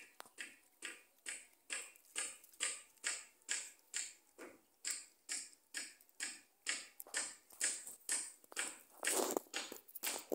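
Black-and-white colobus monkey chewing dry maize kernels: a steady crunching, about two to three chews a second, with a longer, louder crunch near the end.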